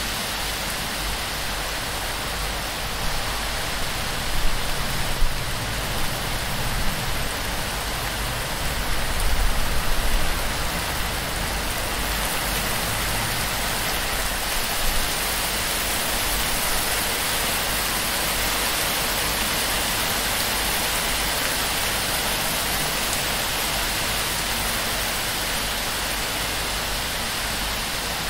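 Heavy torrential rain pouring onto a palm-thatch roof and streaming off its edges in a steady, dense hiss, with a few brief louder low swells in the first half.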